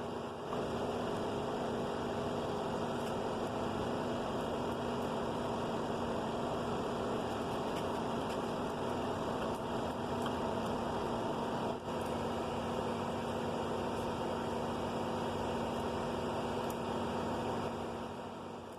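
A steady mechanical hum with a hiss, unbroken until it eases off shortly before the end.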